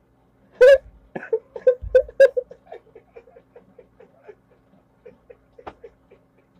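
A man laughing hard: a loud burst of ha-ha pulses about half a second in that trails off into quieter chuckles over the next few seconds, with a faint steady hum underneath.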